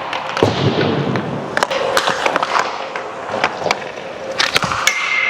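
Ice hockey skate blades scraping and carving on wet, soft rink ice, with repeated sharp clacks of stick and puck.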